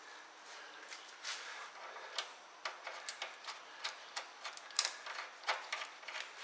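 Scattered light clicks and taps, irregularly spaced, from nuts being started by hand onto the steering linkage studs.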